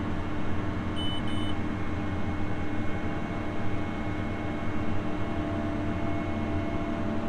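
Farm machinery engine running steadily, with two short high beeps about a second in.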